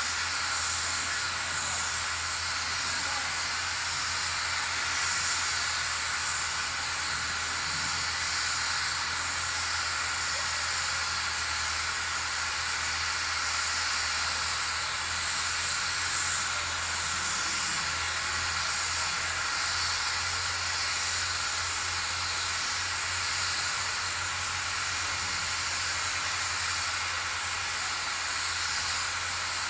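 Standing narrow-gauge steam locomotive hissing steadily as it vents steam, with a steady low hum underneath.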